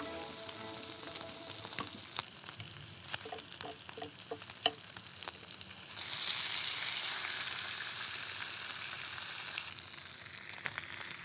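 Pork belly sizzling on a griddle plate, with clicks of metal tongs against the plate. The sizzle grows louder about six seconds in, as a fresh long strip of raw belly is laid down.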